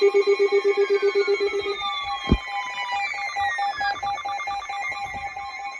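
Electronic alert alarm ringing in a rapid, phone-like trill: several steady tones pulsing quickly together. The loudest, lowest tone stops about two seconds in, and a sharp click follows shortly after. Quieter pulsing tones continue, with falling pitch sweeps.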